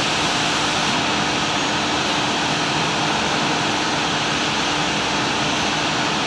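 Steady machine-shop machinery noise: a constant loud hiss with a low hum underneath, unchanging throughout.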